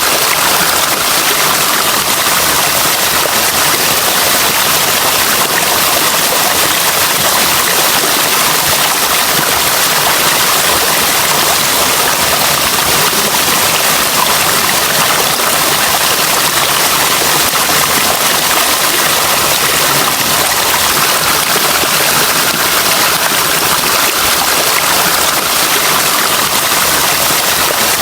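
Running water rushing steadily and loudly, with no breaks or changes.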